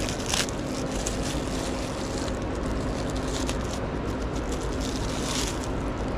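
Plastic wrapping and bubble wrap crinkling in short bursts as hands pull a small figurine out of its bag, over a steady background noise with a faint hum.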